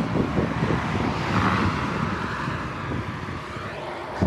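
Wind buffeting an action camera's microphone, over road and traffic noise, on a bicycle moving at about 27 km/h along a highway. There is a brief knock near the end.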